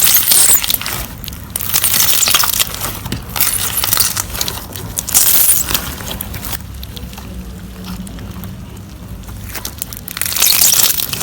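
Slime being squeezed and pressed by hand, crackling and crunching in repeated bursts, with a quieter stretch of a few seconds in the second half.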